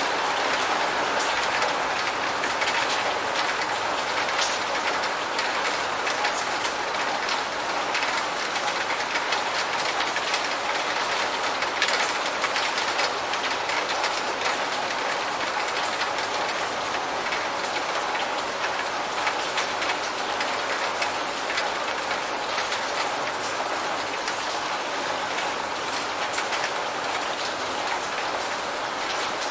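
Steady rain with a dense patter of drops striking a surface.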